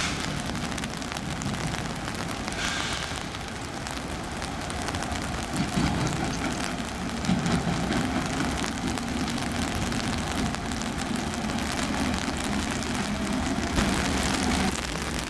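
Steady heavy rain falling, with the low rumble of a train in the background that grows stronger about halfway through.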